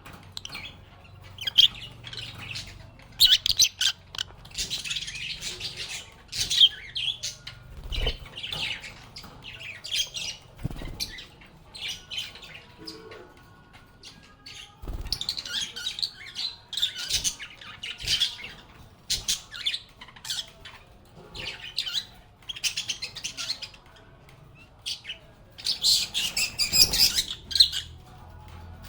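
Lovebirds chirping and squawking in irregular bursts of high, shrill calls, with a louder flurry near the end. A few soft knocks come in between the calls.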